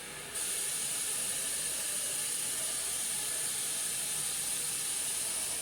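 Water running steadily from a kitchen tap as a smooth hiss. It gets louder about half a second in and stops abruptly at the end.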